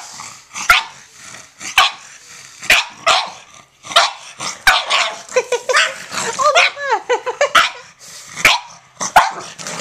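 Pugs barking sharply in rough play, about one bark a second, with some growling.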